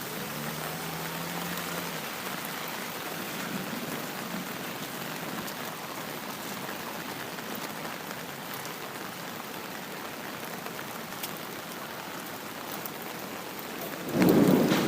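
Steady rain falling, with a sudden loud crack of thunder near the end.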